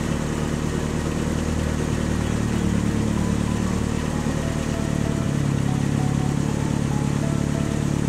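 Engine sound effect for a cartoon toy fire truck: a steady running motor hum whose pitch steps up about five seconds in.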